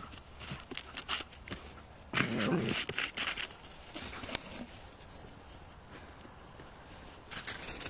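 A husky running on frosty grass: scattered paw-falls and crunches, with a louder stretch of rustling about two seconds in.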